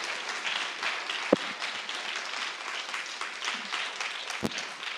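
Audience applauding, with many hands clapping at once. Two sharp thumps cut through, about a second in and again near the end.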